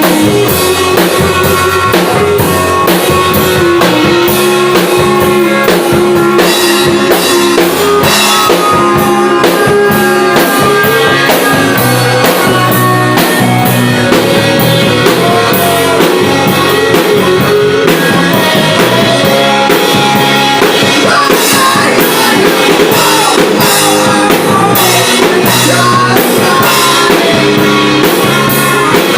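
Rock band playing at full volume: a drum kit keeps a steady beat under electric guitar and bass, with a gliding lead melody line on top.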